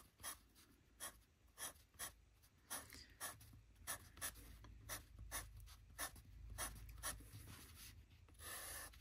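Pastel pencil drawing on paper in short, quick strokes, about two or three a second. The strokes are faint, with one longer stroke near the end.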